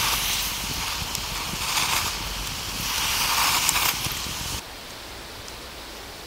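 Wood campfire burning with occasional sharp crackles over a rushing hiss that swells and fades. The sound cuts off abruptly a little over four and a half seconds in, leaving a quieter steady hiss.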